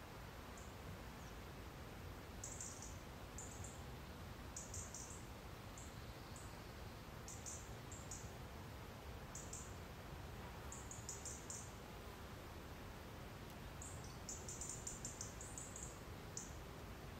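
Faint high-pitched chirps from small woodland birds, coming in short clusters every second or two over a quiet steady hiss of background ambience.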